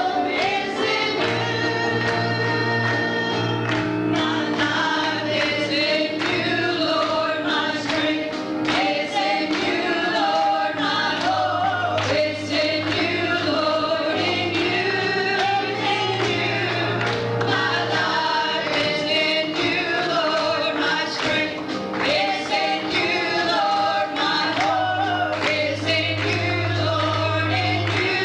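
Church praise team singing a gospel worship song over instrumental accompaniment, with long held bass notes underneath.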